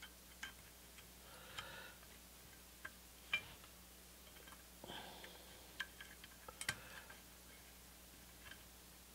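Faint, scattered small clicks and soft rustles of hands handling motor lead wires and fitting quick-connect terminals to the start capacitors' quarter-inch lugs, with two sharper clicks, one about a third of the way through and one a little past two-thirds.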